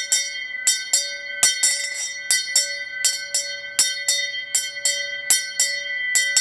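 Thinner vintage brass school bell being rung, its clapper striking about two to three times a second in pairs. It has a bright, slightly tinny ring, almost like a cowbell.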